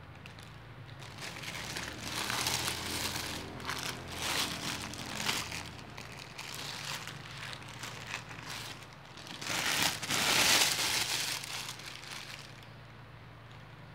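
Thin plastic bags crinkling and rustling in irregular bursts as a white plastic carrier bag is opened and pulled away from a clear plastic food bag, loudest about ten seconds in.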